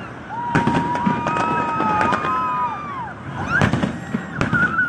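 Fireworks going off: a sharp bang about half a second in and two more near the end, with long, wavering whistles from whistling fireworks that drop in pitch as they die away.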